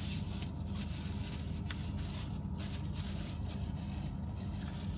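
Steady low hum inside a car with the engine running, no other sound rising above it.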